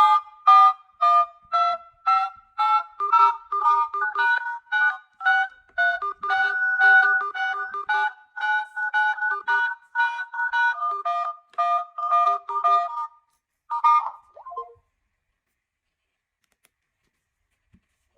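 A Samsung smartphone's built-in alert melody playing through its loudspeaker: a bright electronic tune of short, bouncing notes, about two to three a second. It stops about thirteen seconds in, and one last note sounds a second later.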